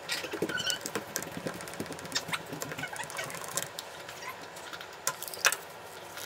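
Utility knife blade scraping and scratching at the plastic diffuser of an IKEA Ledare LED bulb, in small irregular scrapes and clicks. Near the end comes one sharp clack as the knife is put down on the wooden table.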